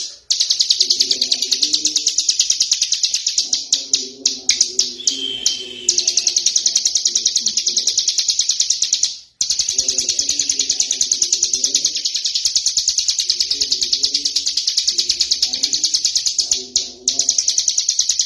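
Hill prinia singing in the rapid, continuous 'ngebren' style: a dense rattle of very fast high notes that pauses briefly about halfway and again near the end. Bouts of low, repeated notes sound underneath.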